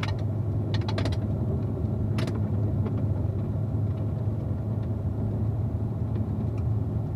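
Corvette driving on a gravel road: a steady low drone of engine and tyres, with scattered sharp clicks from stones under the tyres.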